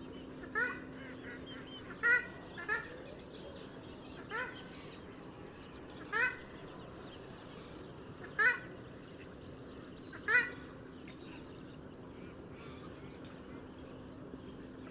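Purple swamphen (Porphyrio porphyrio) giving short, sharp nasal calls: seven of them, a second or two apart, stopping after about ten seconds.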